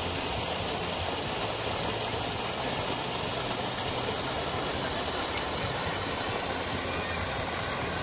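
Water pouring down a partly frozen waterfall and under its ice, a steady, even rushing.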